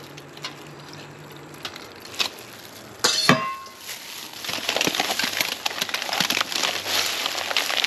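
A single ringing clink of cookware, like a lid or utensil striking a pan, about three seconds in. After it comes a dense crackling sizzle of food cooking in a hot pan, growing loud about halfway through.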